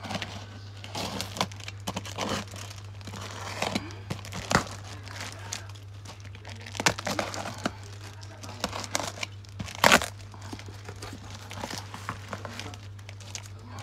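Cardboard parcel wrapped in plastic packing tape being cut and pulled open by hand: crinkling and tearing of tape and plastic with irregular scrapes and sharp snaps, the loudest about ten seconds in.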